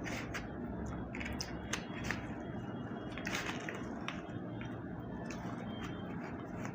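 Eating sounds from people biting into soft cream pastries face-first without hands: scattered wet smacks and clicks of mouth and lips, over a steady low background hum.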